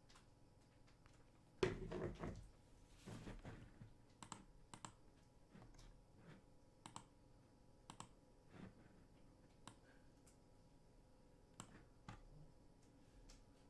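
Faint, sparse and irregular light clicks and taps, with two brief louder handling noises about two and three seconds in.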